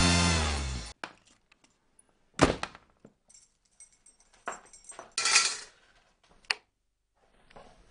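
The last second of a music sting, ending on a falling run. Then sparse handling noises: a few knocks and clicks a second or two apart and a short scraping rustle, as a person moves in a dark bedroom.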